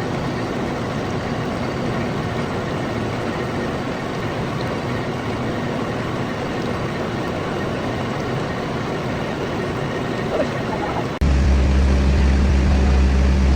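Steady mechanical noise of a running lathe in a machine shop; about eleven seconds in it cuts off abruptly and a louder, deeper steady hum takes over.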